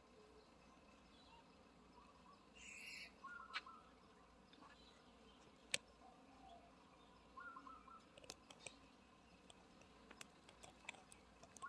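Near silence outdoors, with a few faint, short bird chirps and some soft clicks.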